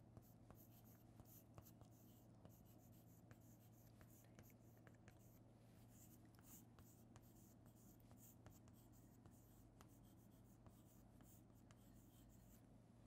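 Chalk writing on a chalkboard, faint: a loose run of small taps and scratches as letters are formed, over a steady low hum.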